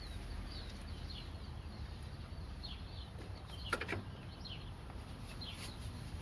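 Small birds chirping repeatedly in short, high, falling chirps over a low steady background rumble. A couple of sharp clicks or knocks land about two-thirds of the way through.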